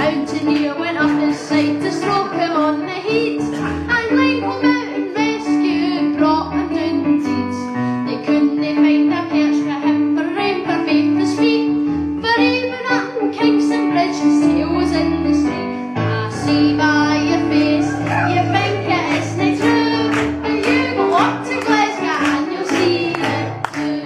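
A young male singer singing a song into a microphone with instrumental accompaniment, with bass and held chord notes under the melody.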